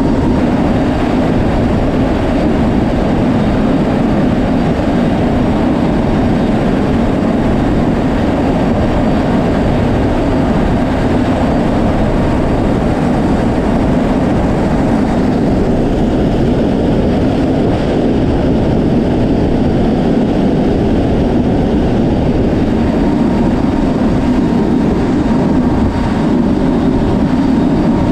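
Steady roar of a C-130J Super Hercules's four turboprop engines and the wind rushing past its open cargo ramp, heard from inside the hold.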